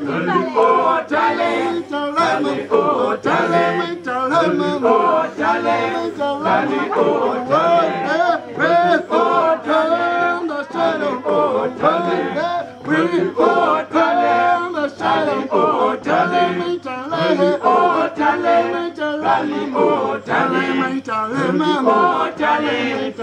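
A choir of many voices singing a cappella in harmony, continuously, with no instruments.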